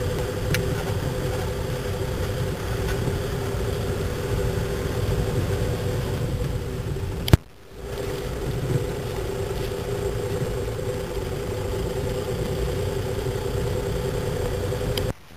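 Car engine running at low speed, heard from inside the cabin: a steady low rumble with a constant hum. A sharp click about seven seconds in is followed by a brief gap in the sound, and there is another short gap near the end.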